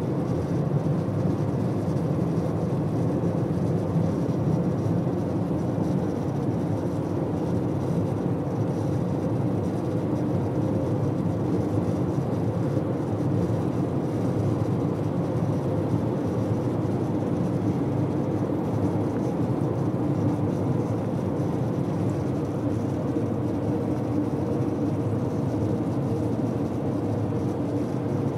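Steady road and tyre noise inside a 2013 Mitsubishi Outlander's cabin on a rough road. Under it runs a rattle from under the dashboard.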